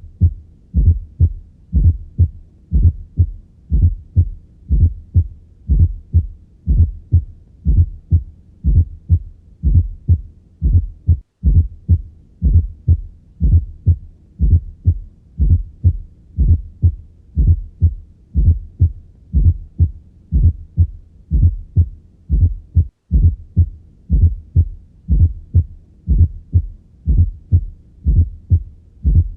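Heart sounds heard by auscultation: a steady rhythm of low thuds with a fourth heart sound (S4 gallop), a soft extra sound just before the first heart sound of each beat. An S4 is the sign of the atria contracting against a stiff ventricle. The sound drops out briefly twice, about 11 and 23 seconds in.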